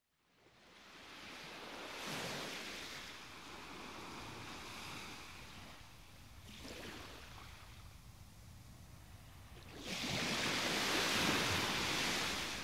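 Open-sea waves sloshing, fading in from silence, swelling about two seconds in and loudest from about ten seconds in.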